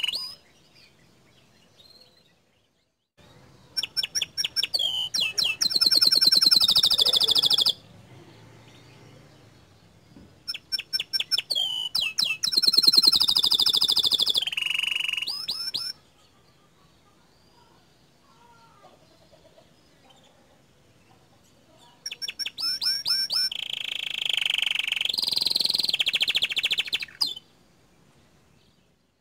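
Domestic canary singing in three bouts, each opening with a fast run of repeated chirps that rolls into long trills, with pauses of several seconds between bouts.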